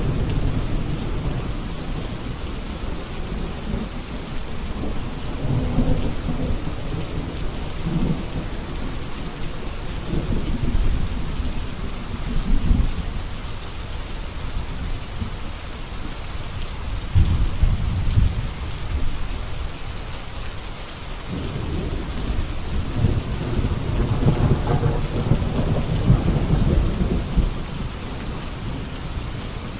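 Steady rain falling, with rolling thunder rumbling in several long low swells, the longest near the end.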